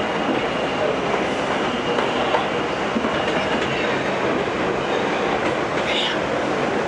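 R68 subway car running at speed, heard from inside the car: a steady rush and rumble of wheels on rail with faint, irregular clicks.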